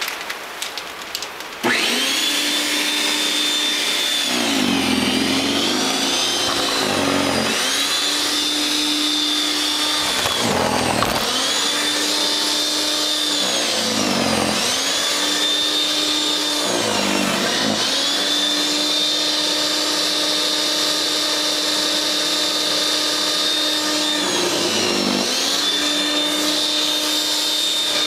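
The 13.5-amp electric motor of a WEN 5662 snow thrower starts abruptly about two seconds in and runs with a steady whine. Its pitch sags and recovers again and again as the auger takes in snow, the motor bogging under load.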